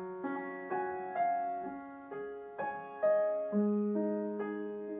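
Slow, gentle piano music: single held notes struck about every half second, each ringing out and fading.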